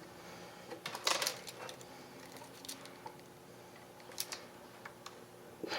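A few light clicks and rustles of small parts and tools being handled at a workbench, the loudest cluster about a second in, over a faint steady hum.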